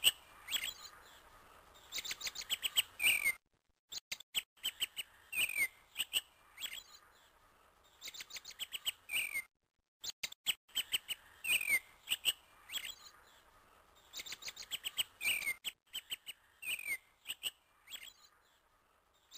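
Birds chirping in quick trills with short whistled notes sliding downward. The same stretch of chirps repeats about every six seconds, with brief complete silences between repeats.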